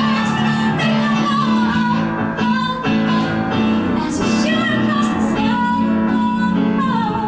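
A woman singing a pop song live into a handheld microphone, accompanied by piano, with long held notes that glide between pitches.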